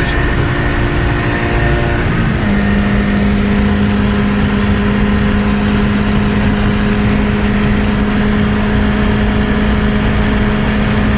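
Tofaş Doğan race car's four-cylinder engine running hard at speed, with a strong steady engine note over road and wind noise. About two seconds in, the note drops in pitch, then holds steady.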